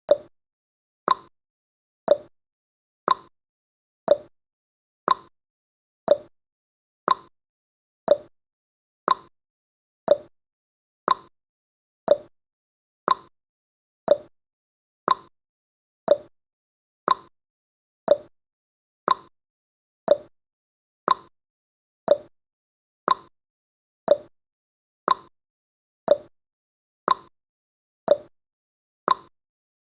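Countdown timer's ticking sound effect: one short, sharp tick every second, each dying away quickly, marking off the seconds.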